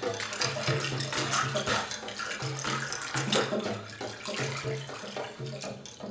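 Performance soundtrack of dense crackling, splashing noise like running water, over a low hum that pulses on and off in short notes. It slowly gets quieter toward the end.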